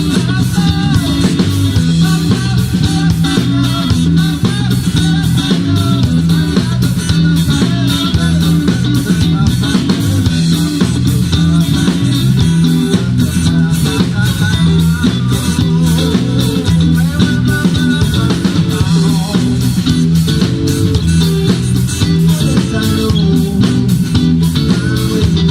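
A band playing rock music on guitars, bass guitar and drum kit, with a steady beat.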